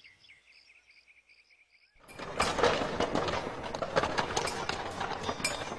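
Faint, fast, even chirping over near quiet. About two seconds in, it gives way abruptly to a busy stone-working din: hammers driving iron chisels into stone, many sharp strikes over a steady bustle.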